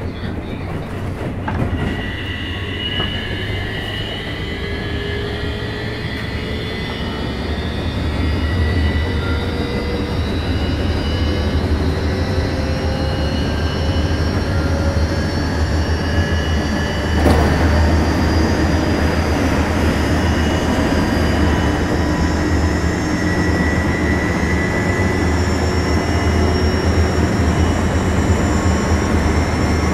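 Series 201 electric train running with its armature-chopper control and traction motors giving the whine known as the 'jet sound': several high tones slowly rising in pitch as the train gathers speed, over a heavy rumble of wheels on rail. A single sharp click comes a little past halfway.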